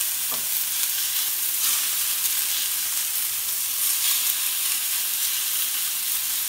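Marinated chicken pieces sizzling in oil on a hot flat tawa griddle: a steady frying hiss.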